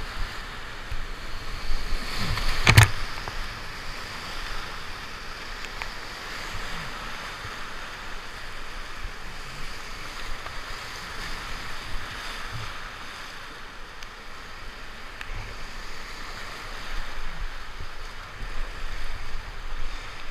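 Whitewater rapids of a river in high flow rushing steadily around an open canoe, with water splashing at the bow. One sharp hit about three seconds in is the loudest sound.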